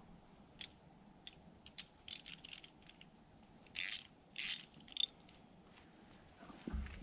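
Light metal clicks from hand tools working on a snapped-off grease zerk at the bottom of a mini excavator's dipper stick, with two louder short bursts about half a second apart a little past the middle.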